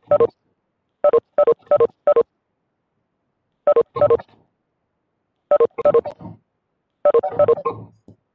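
Clusters of short electronic beeps, three or four quick tones to a cluster, coming every second or two: a video-call app's notification tones as participants leave the call.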